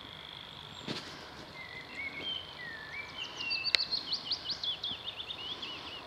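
A small songbird singing: a run of warbling, gliding notes, then a fast series of sharp chirps, over a steady high-pitched tone.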